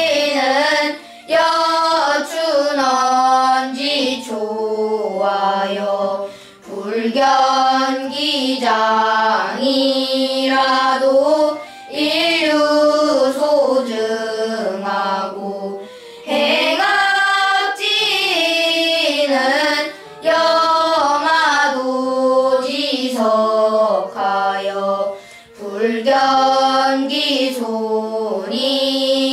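A group of children chanting classical Chinese text aloud in unison, in the sing-song melodic style of traditional Korean seongdok recitation. The chant comes in phrases of a few seconds, with a short breath between each.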